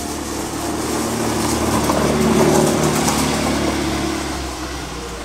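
Car engine passing by, growing louder to a peak about halfway through and then fading away.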